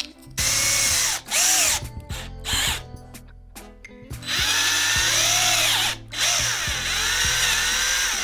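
Cordless drill running in bursts as its bit bores through a plastic bottle cap: three short bursts in the first half, then two longer runs, the pitch rising and falling with the trigger and the load.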